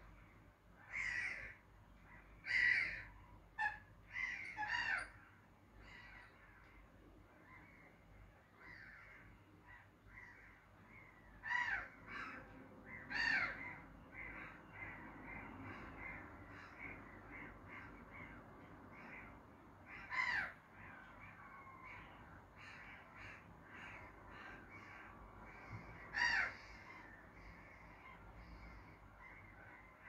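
Pied avocets calling: a few loud, sharp calls in small clusters, at the start, around twelve and thirteen seconds, near twenty and near twenty-six seconds, over a steady background of fainter calls from the flock.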